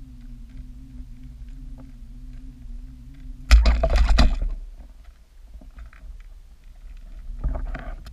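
Underwater recording with a steady low hum. About three and a half seconds in, a sudden loud rushing thump lasts about a second as a pike strikes at Westin Mike the Pike lures being retrieved past the camera. A second, weaker rush comes near the end.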